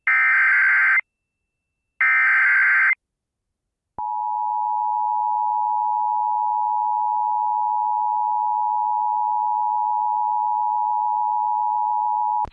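Emergency Alert System tones from a Sage ENDEC. The last two of three one-second SAME header data bursts screech with a gap between them. About four seconds in, the steady two-tone EAS attention signal (853 and 960 Hz) starts and holds for over eight seconds. Together they signal that a new emergency alert, here a tornado warning, is about to be read out.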